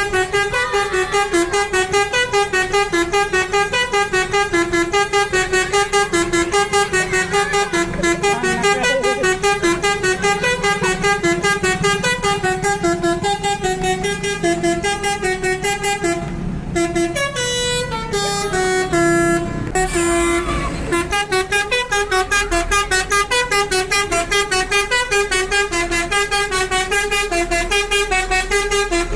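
Basuri 'telolet' bus horn playing a fast tune of short, pitched horn notes, about four a second, breaking off briefly twice past the middle and starting again.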